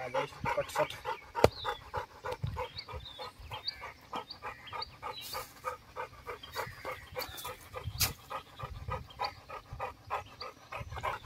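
American bully dog panting hard and fast in an even rhythm, with a few faint short high chirps over it.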